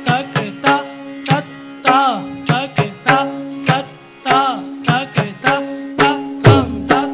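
Indian classical dance accompaniment: crisp hand-drum strokes, about two a second, over a steady drone, with plucked-string notes that bend up and down in pitch.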